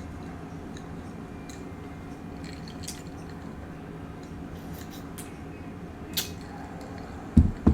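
Eating sounds: scattered small clicks and wet mouth sounds over a steady low hum, with a short low thump near the end.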